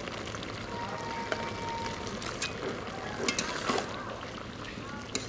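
Vegetable curry simmering in a steel kadai over a wood fire, a steady hiss. In the second half a steel spatula stirs it, giving a few short scrapes and clicks against the pan.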